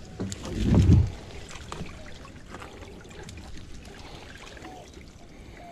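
Shallow water trickling and lapping among mangrove roots beside a small boat, with faint scattered clicks and a brief low rumble about a second in.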